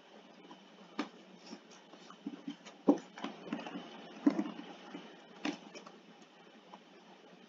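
Scattered clicks and knocks, four sharper ones among softer rustling: computer mouse clicks and handling at a desk.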